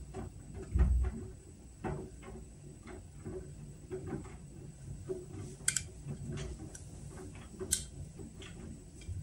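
Whirlpool washing machine running a steam refresh cycle: irregular soft clicks and ticks, with a low thump about a second in and two sharper clicks later on.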